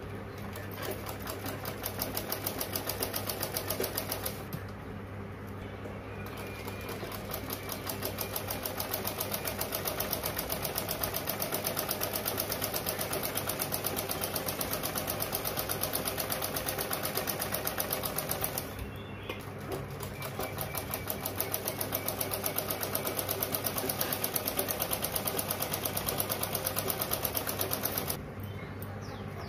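Usha sewing machine stitching fabric: a rapid, even clatter of stitches. It stops briefly about four and a half seconds in and again around nineteen seconds, then stops near the end.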